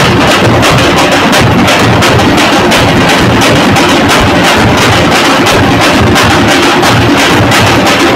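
Loud live drumming in a fast, steady teenmaar beat on drums struck with sticks.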